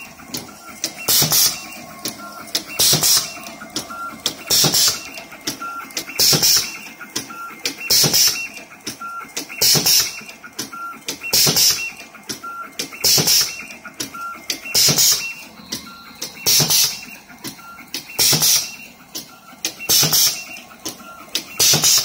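Automatic ribbon cable cutting, stripping and splitting machine running cycle after cycle, about one every 1.7 seconds. Each cycle brings clicks, short motor whines and a sharp hiss of air as the pneumatic blades cut, strip and split a length of flat cable.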